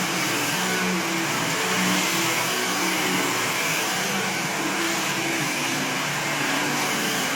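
Handheld hair dryer blowing steadily during a blow-dry: a loud, even rush of air over a low motor hum that comes and goes slightly.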